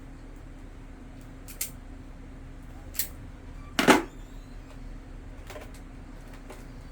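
Small tools and fan parts being handled during a capacitor swap: a few sharp clicks, then one louder knock about four seconds in, and faint ticks after, over a steady low hum.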